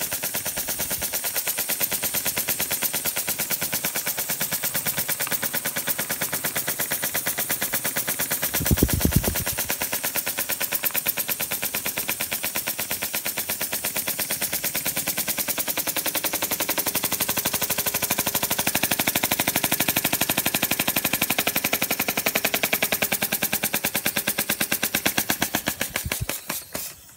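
Small model oscillating-cylinder steam engine running fast on steam from its boiler, its exhaust a rapid, steady, throaty chuffing. A brief low thump about nine seconds in. Near the end the chuffs slow down and stop.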